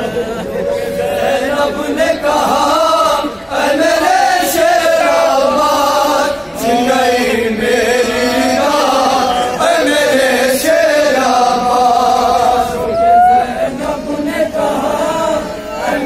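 Men chanting a noha, a Shia mourning lament, together in a group, the voices holding long, wavering notes.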